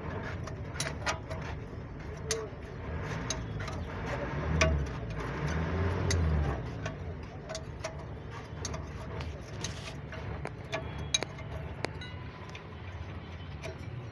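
Irregular sharp metallic clicks and taps from brake caliper parts and hand tools being handled, over a low rumble.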